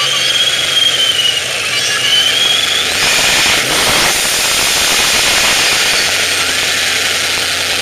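1998 SVT Cobra's 4.6-litre four-valve V8 with Stage 3 cams idling, then revved about three seconds in and settling back to idle. A thin, high-pitched whine sits over the idle.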